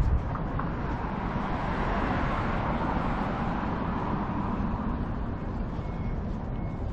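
City road traffic: a steady wash of passing cars and engines, with a faint high beep repeating near the end.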